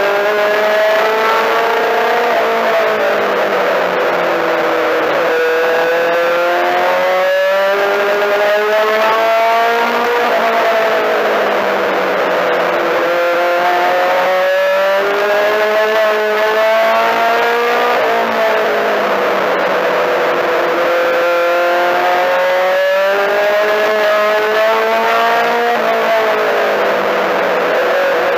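Four-cylinder race car engine heard from inside the cabin under hard running. Its pitch climbs for a few seconds and then falls away, several times over, as it accelerates and lifts around the short oval.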